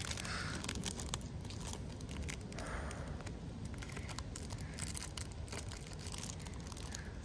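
Thin plastic film being peeled off trading cards by hand: quiet, scattered crinkles and small ticks.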